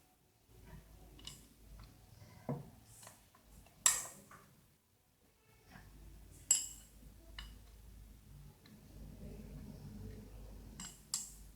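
Metal parts and tools of a tractor clutch assembly clinking and knocking as they are handled, with scattered light clicks and two sharper ringing metal strikes about four and six and a half seconds in.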